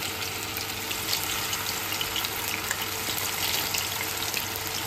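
Marinated fish pieces deep-frying in hot oil in a kadai, a steady sizzle full of small crackles and pops.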